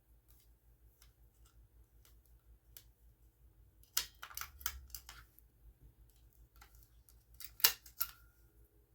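Faint scattered plastic clicks and rattles from a SmokeGard smoke alarm being handled as its batteries are checked, with two busier bursts of handling about four seconds in and near the end.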